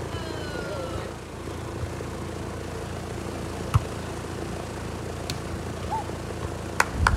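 Volleyball being struck by players' hands and arms during a rally: one sharp slap about halfway through and a quick run of slaps near the end, over a steady low background rumble.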